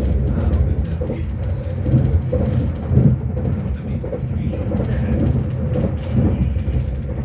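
Train running along the line, heard from inside the carriage: a steady low rumble with a few heavier knocks about two, three and six seconds in.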